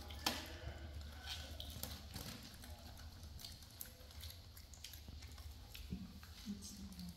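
Scattered small clicks, taps and rustles of pet macaques handling and eating watermelon and rice balls from wicker baskets, over a low steady hum; one sharper click about a quarter second in.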